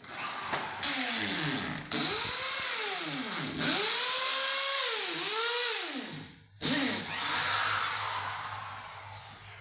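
Handheld electric drill boring into a plastered wall in several bursts with short breaks between them, its motor pitch rising and falling; the last burst fades out near the end.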